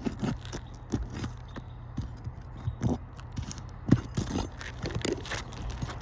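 Metal Roof Snake tool working under 3-tab asphalt shingles to lift them and break their seal: irregular clicks, knocks and scrapes of metal against shingle, with a sharper knock about four seconds in.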